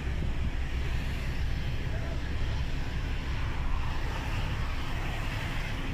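Truck engine running and road noise while driving slowly through traffic, heard from inside the cab as a steady low rumble.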